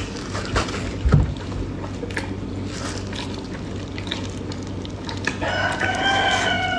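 A rooster crowing: one long call starting about five and a half seconds in, holding its pitch and then falling at the end. A few soft clicks and thumps come before it.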